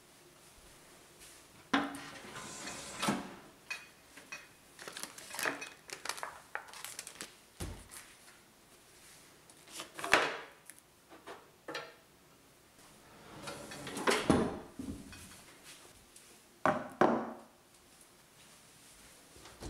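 Kitchen handling sounds: a tall cupboard and its pull-out wire pantry rack opened, food packets and tins taken out and set down on a wooden table. Several separate clunks and rattles with rustling between.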